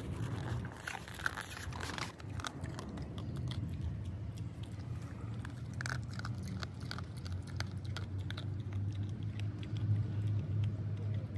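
A dog crunching and chewing dry kibble from a stainless steel bowl, a rapid run of sharp crunches that thins out in the later seconds as it lifts its head from the bowl. A steady low rumble underneath grows louder near the end.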